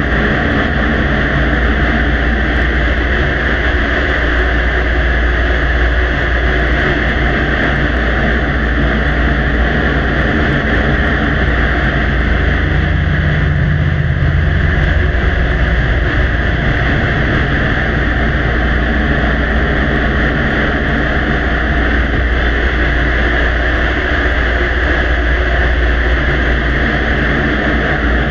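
Heavily amplified recording: a loud, steady rushing noise with a low hum beneath it that swells slightly about halfway through.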